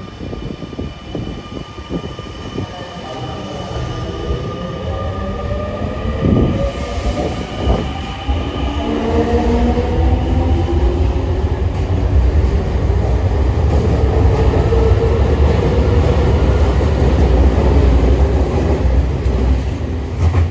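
A Semboku Rapid Railway 5000 series electric train (set 5501F, with renewed traction equipment) pulling out and accelerating. Its VVVF inverter and traction motors whine in several tones that climb in pitch for the first several seconds, then settle into a steadier hum. Under this, the rumble of wheels on rail grows as the cars pass and is loudest in the second half.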